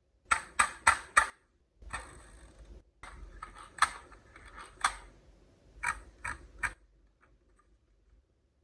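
Marbles rolling and clacking down a HABA marble run track. First four quick sharp clacks, then a stretch of rolling rattle with more clacks, then three clacks about a second before the end.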